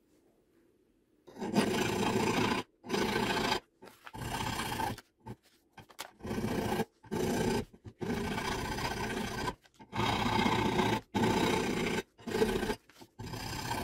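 Flat hand file rasping back and forth across the steel muzzle end of a Savage Axis II .223 rifle barrel: about a dozen strokes, roughly one a second, starting after a quiet first second. The barrel end is being filed down by hand to about half an inch, to take 1/2-28 threads.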